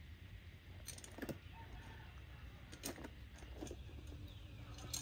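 A few short, sharp clicks and taps, about five spread across a few seconds, over a low steady hum.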